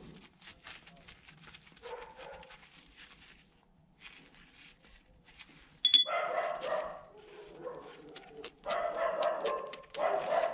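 An animal calling loudly several times from about six seconds in, in a few separate runs. Under it, small metallic clicks of a drum brake adjuster screw being turned and handled.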